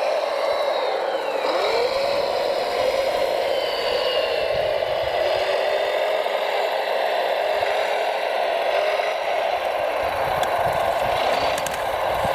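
Radio-controlled model trucks running, their electric drive motors and gearboxes whining steadily, with the whine gliding up and down in pitch as they speed up and slow down.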